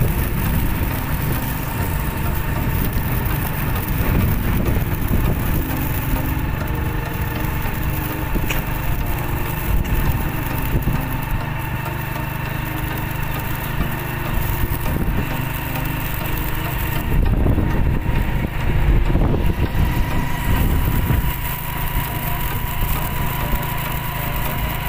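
Motorcycle engine running steadily at cruising speed, with wind and road noise rushing over the microphone while riding.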